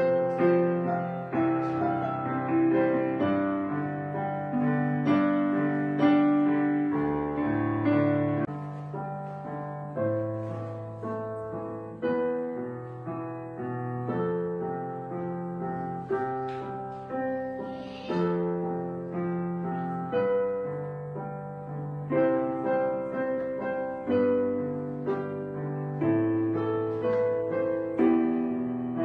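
Background piano music: notes and chords struck one after another, each ringing and fading.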